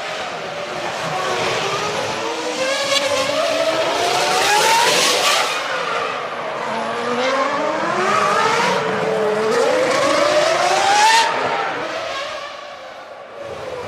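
Formula One cars' V10 engines at racing speed, the engine note climbing twice in long rising sweeps as the cars accelerate, then dropping away near the end.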